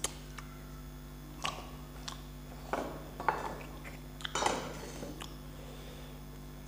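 Small stainless steel bowl clinking and scraping against a steel plate as it is emptied, then set down on the table and stacked onto another steel bowl: a handful of light clinks spread through, the loudest about four and a half seconds in.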